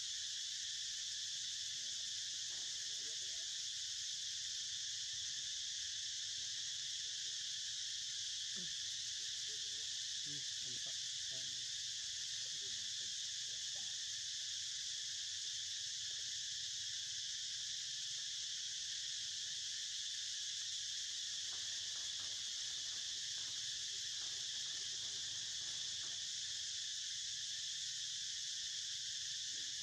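A steady, shrill chorus of insects, running on without pause or change in level.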